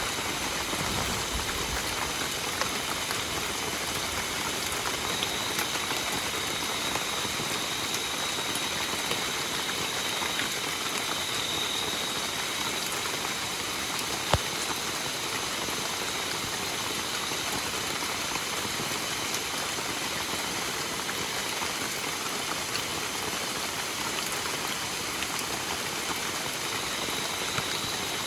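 Steady rain falling, an even hiss of drops with no letup. There is one sharp tap about fourteen seconds in, and a faint high steady tone sits under the rain for several seconds in the first half.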